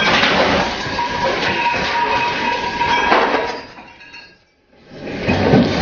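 Heavy seas crashing over a ship's bow, with spray and water rushing across the deck, in a long surge and then a second one near the end after a brief lull. A thin steady whistle runs through the middle of the first surge.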